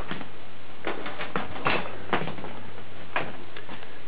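Scattered light clicks and knocks of hands handling a desktop computer and its cables as they are reconnected, about a dozen in all, over a steady low hum.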